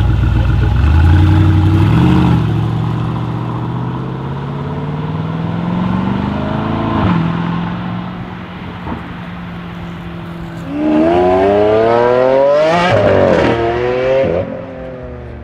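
Mercedes-AMG G63's twin-turbo V8 through an Akrapovic exhaust, revving and accelerating: the engine note climbs and falls several times, with a loud steep rise in pitch about eleven seconds in and quick drops near the end.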